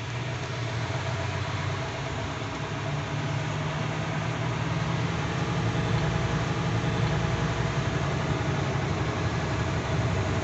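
Truck engine running at low speed, heard from inside the cab: a steady low hum with road noise that grows slightly louder.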